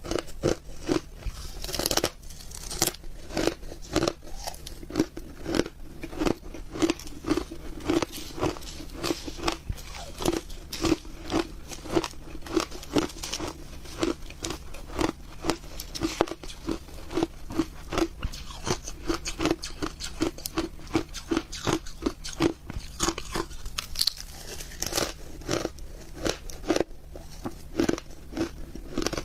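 Close-up crunching and chewing of shaved ice, a steady run of sharp, crisp bites at about two to three a second.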